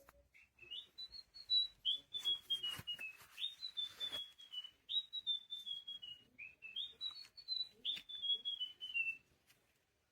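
Electronic bird chirping from a Pets Alive Chirpy Birds toy: four whistled phrases, each a run of short high notes stepping down in pitch, with a few knocks among them.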